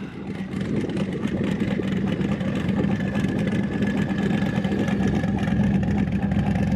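Twin-turbo Chevy S10 engine held at steady high revs for several seconds, building up at the start and easing off at the end.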